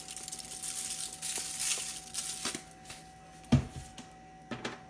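Salt being shaken from a shaker over potato chunks in a foil-lined aluminum pan: a run of quick gritty shakes, the grains hissing onto the potatoes and foil, for about two and a half seconds. Then a single dull thump about three and a half seconds in and two lighter knocks soon after.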